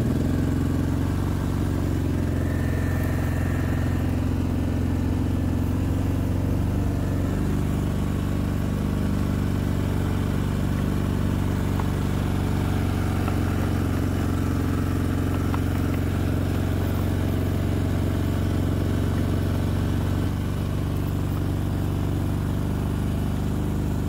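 Small vehicle engine running steadily at an even pitch while driving.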